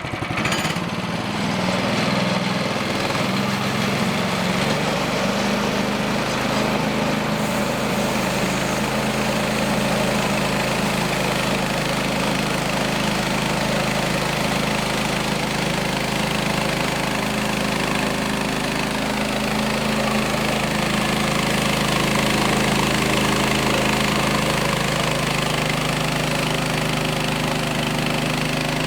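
Band sawmill cutting a ponderosa pine log: the small gas engine runs steadily under load while the bandsaw blade cuts through the wood. The log is at the largest size the mill can take.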